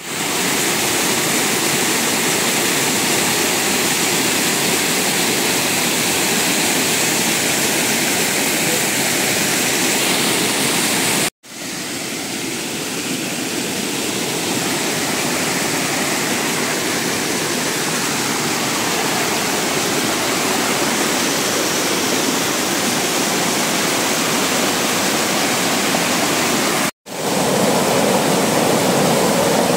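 Small waterfall pouring over mossy rock into a pool: a steady, loud rush of falling water. The sound drops out for an instant twice, a little over a third of the way through and near the end, coming back slightly quieter after the first gap and building up again.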